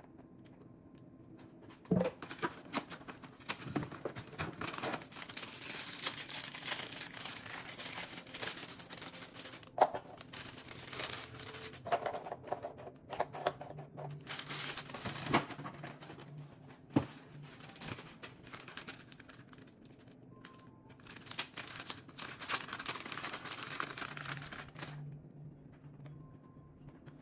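Plastic snack bag crinkling and rustling as it is handled, with a few sharp clicks, while crackers are taken out and laid on a plastic party tray.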